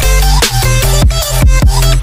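Background electronic dance music with a heavy bass and a fast, steady beat.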